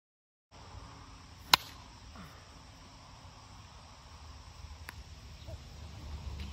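Steady high chirring of insects over outdoor air, starting after half a second of silence. One loud, sharp click comes about a second and a half in, and a fainter click near five seconds in, where a plastic wiffle bat meets the ball. A low wind rumble on the microphone grows toward the end.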